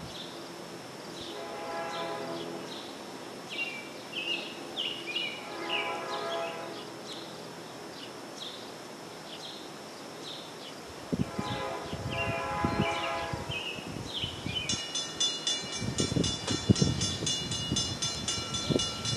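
Distant train horn sounding three long blasts as a diesel-hauled Metro-North train approaches, with birds chirping between them. The locomotive's rumble grows over the second half, and a rapid, steady ringing starts near the end.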